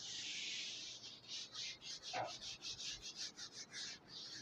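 Felt whiteboard eraser wiping across a whiteboard: one long swipe, then quick back-and-forth rubbing strokes, about five a second.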